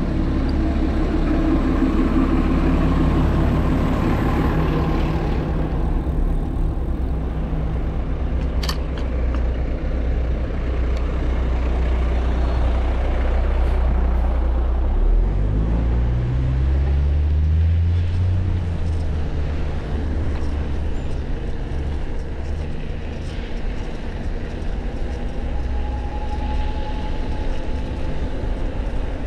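Wind rumbling on the microphone of a moving bike, with road traffic around it; about halfway through, a vehicle engine rises in pitch as it speeds up.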